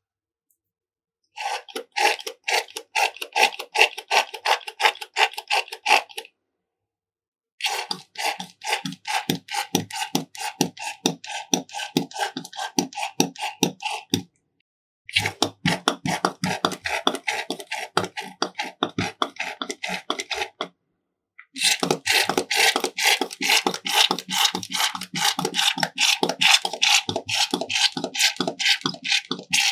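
Slime being worked, making rapid wet clicks and pops, about five or six a second. The runs break off three times into short silences.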